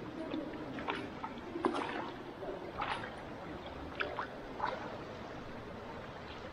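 Thermal pool water sloshing and lapping as a person wades into it, with a few short splashes about a second apart.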